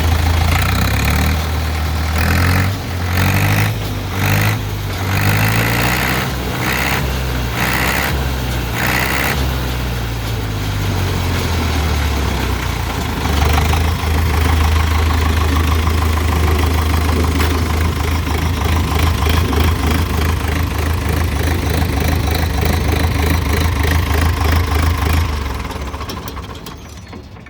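Deutz four-cylinder diesel on a Freeman 370 baler running after a cold start. Its speed rises and falls with repeated short surges for the first ten seconds or so, then it runs steadily, and it winds down and dies away near the end.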